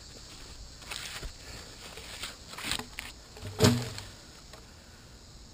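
Someone moving through brush and leaf litter: a few scattered crunches and rustles, with a louder thump about three and a half seconds in.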